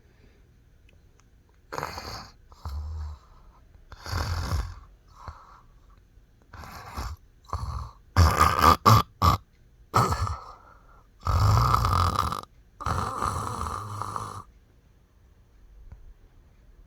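A person snoring loudly in an uneven run of snores, some short and some drawn out for about a second, the loudest in the middle. The snoring stops a couple of seconds before the end.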